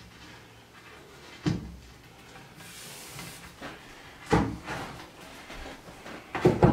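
Wooden bunk-bed rails knocking and bumping as an assembled side piece is pushed onto its dowels in a bed post: a single knock about a second and a half in, two more around four to five seconds, and a quick cluster of louder knocks near the end.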